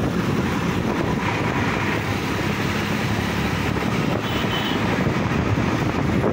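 Sonalika DI-50 RX tractor's diesel engine running steadily while the tractor drives along, heard from on board.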